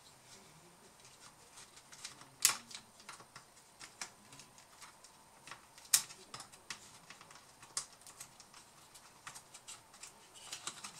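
Irregular small clicks and taps of a hand tool and fingers on the plastic top case of a laptop being reassembled, with two sharper clicks about two and a half and six seconds in.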